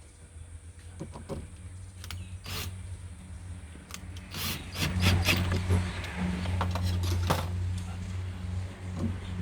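Scattered light metallic clicks and clinks, as of small metal parts and tools being handled, over a steady low engine-like hum that grows louder about five seconds in.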